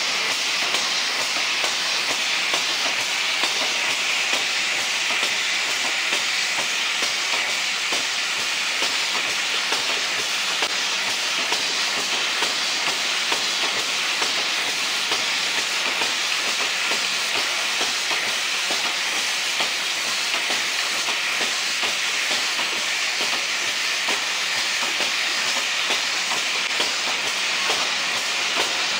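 AWP-60 automatic actuator placing machine running: its vibratory bowl feeder rattles plastic aerosol actuators along the track while aerosol cans clatter along the conveyor, a steady, dense clatter with a hiss.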